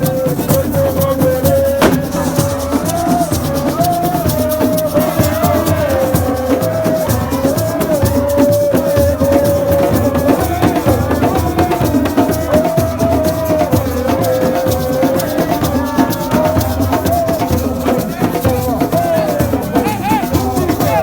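Music with a dense shaken-rattle rhythm over low drumming, and one continuous wavering melody line held throughout.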